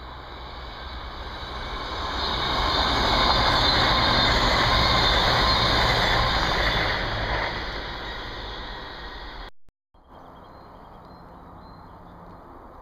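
Passenger train passing close by on the railway: a rushing rumble that swells over a couple of seconds, holds loudest for about four seconds, then fades as the train goes away. The sound cuts out briefly near the end, and a lower steady background follows.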